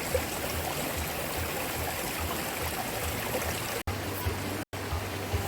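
Mountain valley stream flowing steadily over rocks, a continuous rushing of water that cuts out briefly twice near the end.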